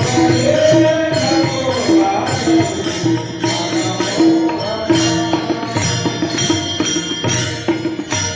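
Indian devotional folk music: a steady rhythm of percussion strokes under a melodic line that bends in pitch for the first couple of seconds.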